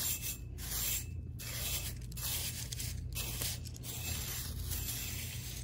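Straw hand broom brushing along a poultry house water line pipe, a bristly scrubbing sound in repeated strokes about once a second, over a steady low hum.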